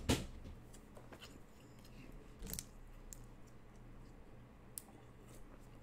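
A sharp click just after the start, then a handful of fainter clicks and taps over low room noise.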